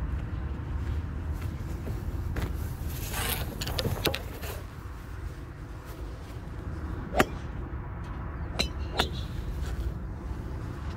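Steady low wind rumble on the microphone, with a stretch of rustling about three to four seconds in. In the second half come three sharp clicks, the loudest about seven seconds in and two close together about two seconds later: a golf club head knocking range balls as it rakes one out of the pile.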